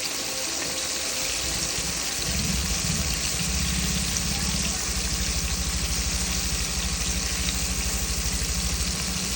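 Chicken frying in hot oil, a steady, dense sizzle, with a fast even low pulsing underneath from about two seconds in.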